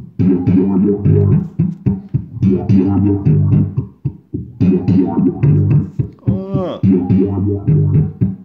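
Looped electric bass line repeating about every two seconds, played through an effects pedal whose waveform and rate are being adjusted. A brief swooping sweep rises and falls about two-thirds of the way in.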